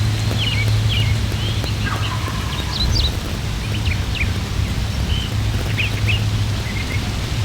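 Songbirds chirping with many short, high calls, and a wild turkey gobbling faintly about two seconds in, over a steady low rumble.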